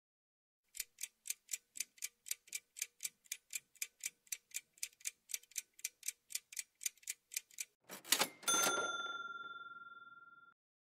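Countdown-timer sound effect: a clock ticking about four times a second for about seven seconds. It ends with a short burst and a bell-like chime that rings out and fades over about two seconds, marking the answer reveal.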